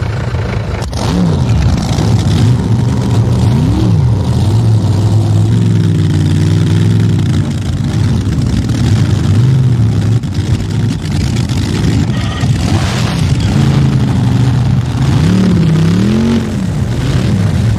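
Several supercharged V8 drag-boat engines idling together, with throttle blips that rise and fall in pitch every few seconds.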